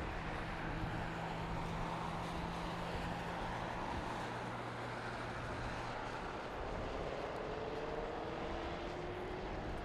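Airbus A380 airliner's four jet engines at takeoff power, a steady, distant rumble as it lifts off and climbs away.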